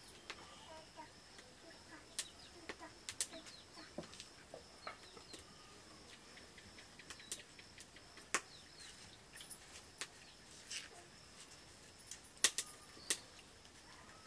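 Scattered sharp clinks and taps of stainless-steel plates and bowls as people eat rice by hand, with faint clucking of chickens between them.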